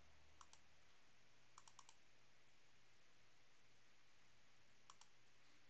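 Faint computer clicking over near-silent room tone: two clicks, then a quick run of four, then two more near the end.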